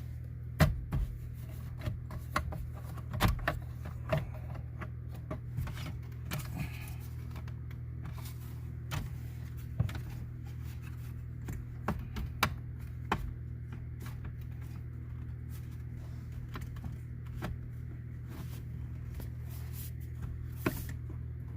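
Irregular clicks and knocks of a radio unit and plastic dash trim being handled and pushed into place in a Honda Civic dash, a few sharper knocks among them, over a steady low hum.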